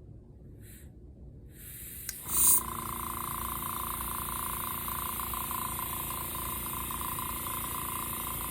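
Iwata Studio Series Smart Jet airbrush compressor kicking back on about two seconds in, with a click and a short loud burst of hiss, then running steadily with a high whine and hiss. The motor restarts because air is bleeding out through the opened bleed valve and the tank pressure has dropped.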